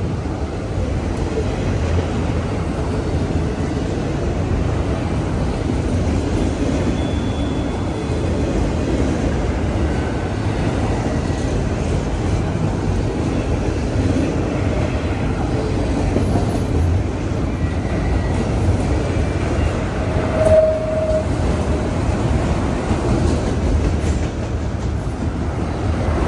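CSX autorack freight train rolling past: a steady, loud rumble and rattle of wheels on rail. A brief higher-pitched note comes about twenty seconds in, the loudest moment.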